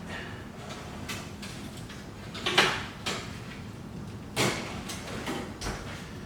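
Oven door and metal baking pan being handled: a few short knocks and clanks, the loudest about two and a half seconds in and again a couple of seconds later, as the dish comes out of the oven.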